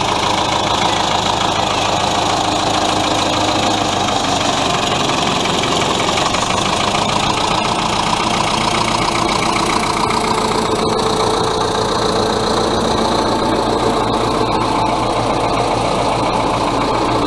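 Allis-Chalmers HD6 crawler dozer's diesel engine running steadily at a low, even speed.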